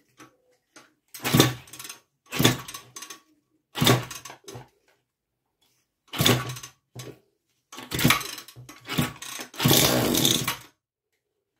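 Small two-stroke engine cranked by hand with its recoil starter, about six separate pulls each making a short burst; it is being fed hydrogen gas from a homemade cell. The last burst, near the end, runs longer, then it stops and the engine does not keep running.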